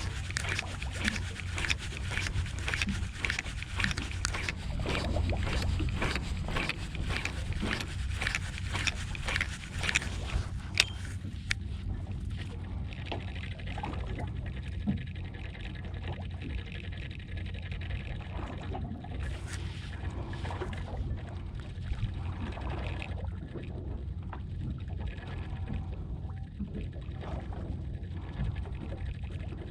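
Small fishing boat at sea: a steady low rumble with water moving around the hull. For roughly the first ten seconds a fast run of clicks and knocks sits on top, then it quietens.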